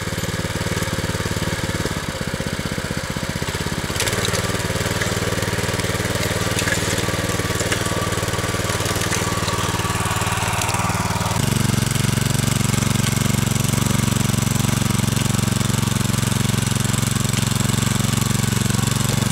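Walk-behind tractor (motoblock) engine running steadily under load as it tills unbroken ground full of roots and stones, pulling well. It gets louder about four seconds in and again, more strongly, at about eleven seconds.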